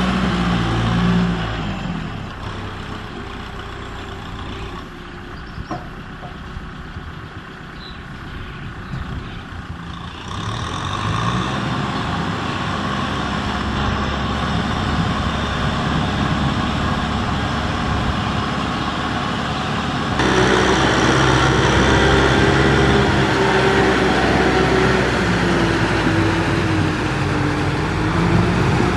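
Tractor diesel engine running under load, its pitch rising and falling as it is throttled; the sound jumps in level about ten and twenty seconds in.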